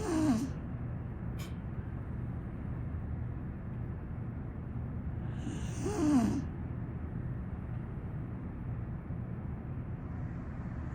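A sleeping small pit bull–type dog (a "pocket pittie") snoring: one snore right at the start and another about six seconds later, each a short pitched snort with a hissing breath, over a steady low hum.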